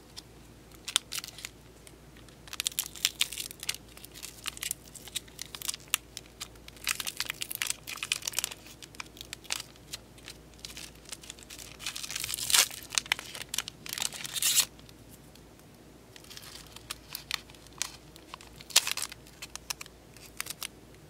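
Foil wrapper of a Pokémon Sun & Moon Guardians Rising booster pack crinkling and tearing in the hands, in irregular crackling bursts, loudest and longest about twelve to fifteen seconds in. Fainter scattered ticks and rustles follow near the end as the cards are handled.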